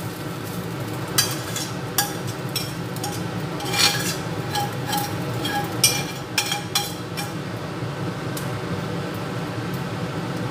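A utensil scraping and clinking against a stainless steel frying pan as fried rice is scraped out onto a plate: several sharp clinks, some with a short metallic ring, over a steady background hiss.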